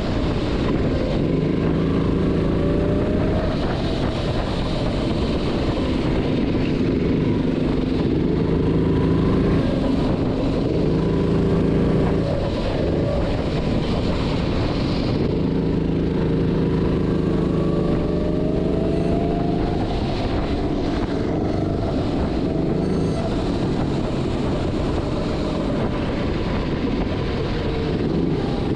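Go-kart engine running hard from the driver's seat, its pitch climbing as the throttle is held on the straights and dropping back as the driver lifts into the corners, again and again, over a steady rushing noise.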